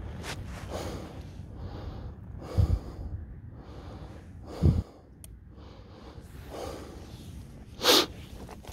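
Close-up breathing with handling noise as a common carp is lifted from a landing net and laid back: fleece sleeves and net mesh rustling, two dull thumps about two and a half and four and a half seconds in, and a loud sharp burst near the end.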